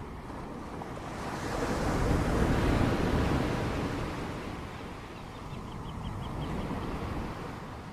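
Sea surf breaking on a beach: a wave swells to its loudest about two and a half seconds in and washes away, with a smaller one later, over wind on the microphone.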